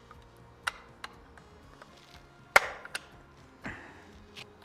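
Steel top cover of an E&L AK74MN airsoft rifle being pressed and knocked into place on the receiver: a handful of sharp metal clicks and knocks, the loudest a little past halfway. The new cover is stiff and hard to seat.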